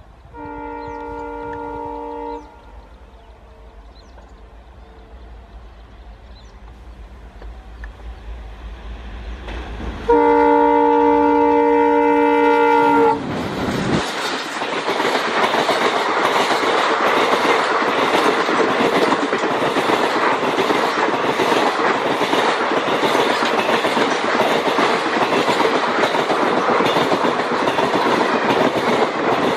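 ALCo diesel locomotive (Indian Railways WDM-3A) sounding its horn twice, a short blast near the start and a longer, louder one about ten seconds in, while the low engine rumble grows as it approaches. From about fourteen seconds the locomotive and its coaches pass close by, a loud steady rush with the rhythmic clickety-clack of wheels over rail joints.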